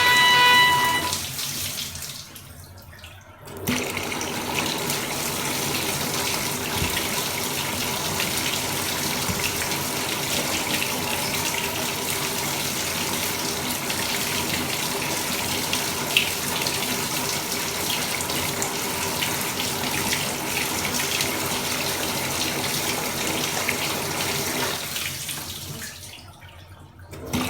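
Bathroom mixer tap making its abnormal noise: a loud pitched whine with overtones at the start, cutting off about a second in. After a short quiet spell, water runs steadily from the tap for about twenty seconds with a faint hum underneath, then goes quiet near the end.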